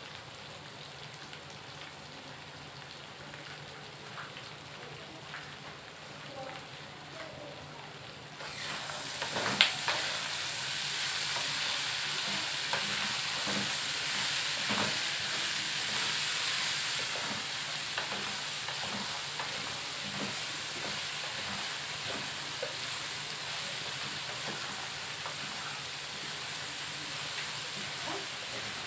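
Peanuts and garlic frying in oil in a pan, sizzling and being stirred with a wooden spatula. The sizzle is faint at first and turns suddenly louder about eight seconds in, just before a sharp knock of the spatula against the pan. Small knocks and scrapes of the stirring follow.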